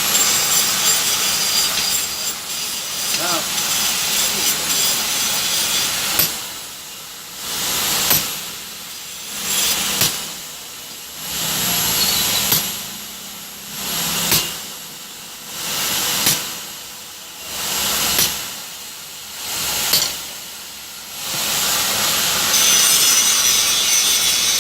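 Regular noisy work strokes, about one every two seconds, each starting with a sharp click and swelling then fading, eight in a row, between stretches of steady hissing noise.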